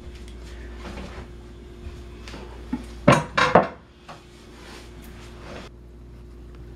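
Ceramic slow cooker crock with its glass lid being moved and set down on a wooden board, clattering twice about three seconds in amid lighter handling knocks.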